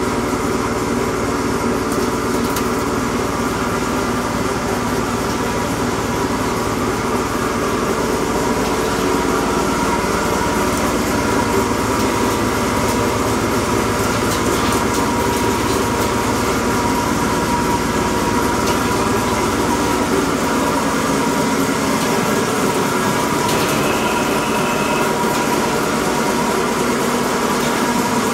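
RB-55-2 drum wood chipper running steadily on its electric motor: a constant machine drone with several steady whining tones, and no chipping impacts.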